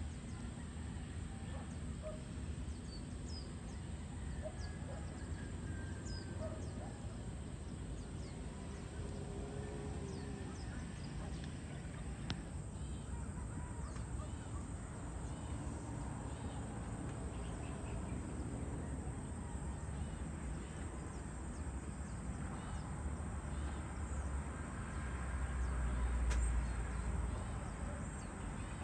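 Outdoor countryside ambience: scattered short bird calls and chirps over a steady low rumble, which swells louder for a couple of seconds near the end, with a sharp click at its peak.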